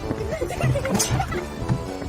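Background music, with short gliding sounds over it and a sharp click about a second in.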